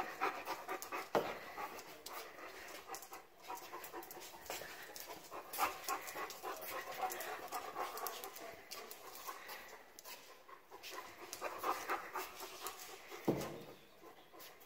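A dog panting steadily, with scattered sharp clicks and two knocks, one about a second in and one near the end.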